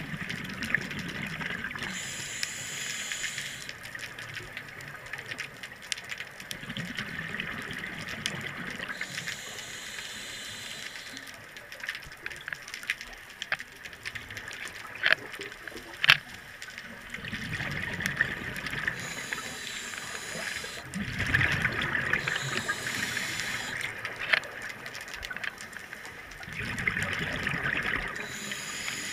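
Open-circuit scuba breathing heard underwater: a hissing inhale through the regulator every several seconds, alternating with a low gurgle of exhaled bubbles. A few sharp clicks come about halfway through.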